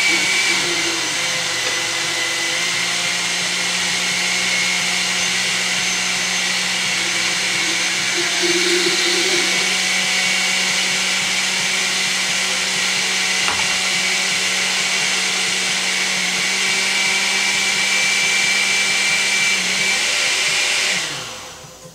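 Countertop blender running steadily at full speed with a constant motor hum, then switched off about a second before the end, the motor winding down.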